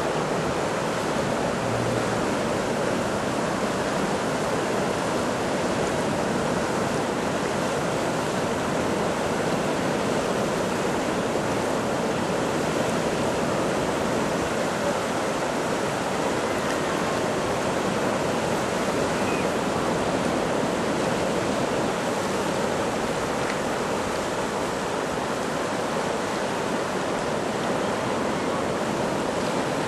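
Steady rushing of a wide river's whitewater rapids, an even hiss with no breaks or distinct events.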